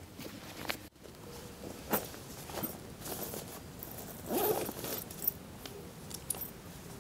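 Camping gear being handled close up: scattered rustles, clicks and taps, with a longer, louder rustle about four seconds in.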